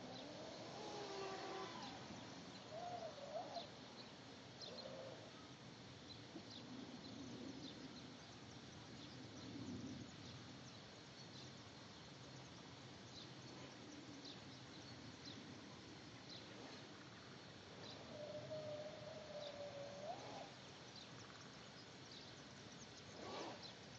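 Faint outdoor background noise with scattered short, high chirps and a few brief wavering mid-pitched tones.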